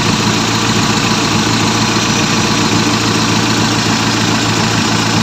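Petrol engine idling with an uneven exhaust putt-putting. This is the symptom of a failed distributor vacuum advance, which the owner takes for a timing fault, heard with the advance hose released.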